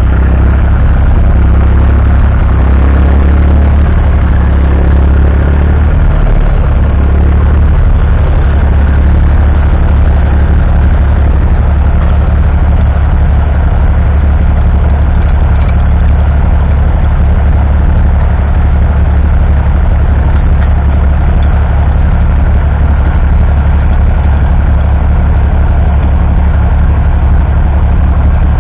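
1959 Fordson Dexta's 2.4-litre three-cylinder diesel engine running steadily under load as the tractor pulls a two-furrow mounted plough through the soil.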